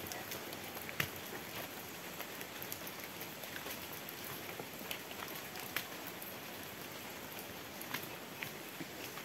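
Light rain falling on foliage: a faint steady hiss with scattered small ticks of drops.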